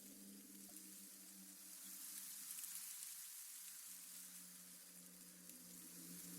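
Faint spooky ambience: a steady high hiss with a low droning hum beneath it. The drone fades away about halfway through and swells back near the end.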